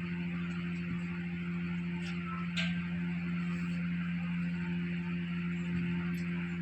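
Steady low mechanical hum, with a light metallic clink about two and a half seconds in.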